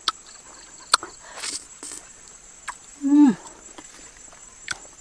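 Wet mouth clicks and smacks of a person chewing raw honeycomb, with a short hummed "mmm" about three seconds in that falls in pitch at the end. A steady high insect drone runs underneath.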